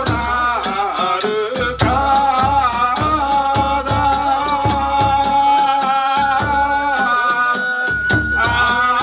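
Kagura hayashi ensemble playing: a shrill bamboo flute melody over a brisk, steady beat of taiko drums and small hand cymbals (tebyoshi).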